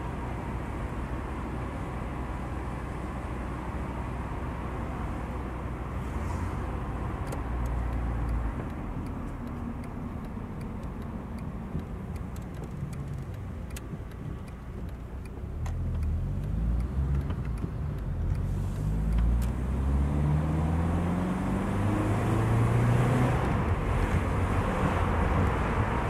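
Car engine and road noise heard from inside the car while it is driven. A steady low rumble eases off, then from about two-thirds of the way in the engine note grows louder and climbs in pitch several times over as the car accelerates.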